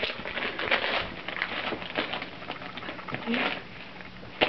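Wrapping paper crinkling and tearing in irregular crackles as a dog bites and pulls at a wrapped present.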